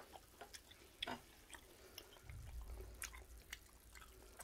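Faint wet mouth clicks and smacks of a man chewing marinated pork ribs, a handful of scattered clicks, with a brief low rumble in the middle.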